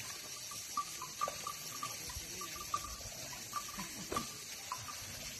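Quiet forest ambience with many short, faint chirps scattered irregularly through it and a few soft knocks.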